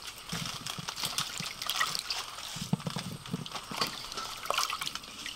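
Water trickling and splashing as it is poured over raw beef and beef balls on a baking tray, with small irregular patters.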